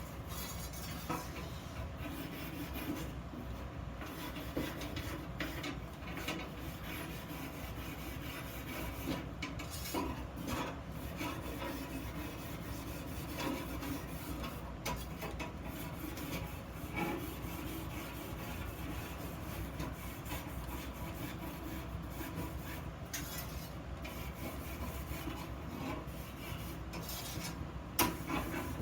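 Continuous irregular rasping and rubbing of a hand tool worked back and forth over iron, with no motor whine.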